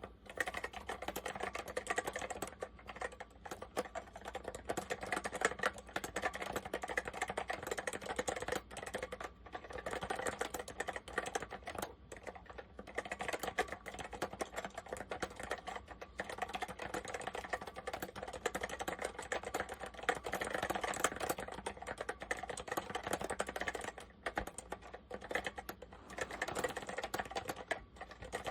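Typing on an Apple M0110A Macintosh Plus keyboard with Mitsumi Standard Mechanical switches: a fast, continuous run of key clicks, broken by a few short pauses.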